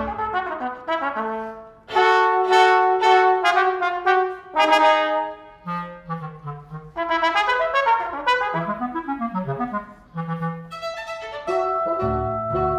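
Chamber ensemble of violin, double bass, clarinet, bassoon, trumpet, trombone and percussion playing contemporary concert music in short, detached phrases, with the trumpet prominent. Near the end a held high note sounds over pulsing low notes.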